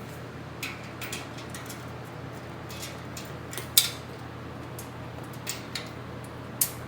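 Scattered metallic clicks and clinks of patio chair frame parts and bolts being handled and fitted together during assembly, about eight sharp taps with the loudest just before the middle and another near the end, over a steady low hum.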